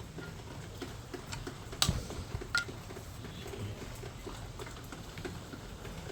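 Scattered light metallic clicks and taps of hand tools and fittings being handled while a line is fitted to an air compressor, with two sharper clinks about two seconds in and again a moment later.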